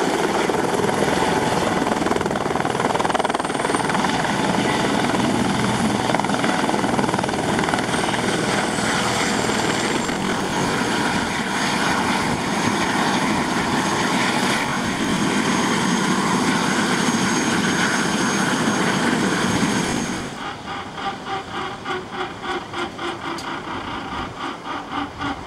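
Eurocopter EC130 helicopter's turbine engine and rotor running steadily, with a high whine over the rotor noise. About twenty seconds in the engine noise drops off abruptly, leaving a quieter, rhythmic beat of the turning rotor blades at two to three beats a second.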